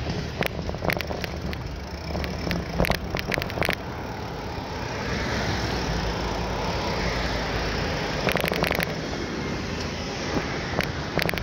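Wind rushing over the microphone and road noise from a bicycle ride, with four short bursts of rattling clicks.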